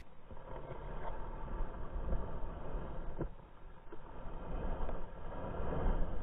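Wind buffeting the microphone over the steady rush of a shallow stream.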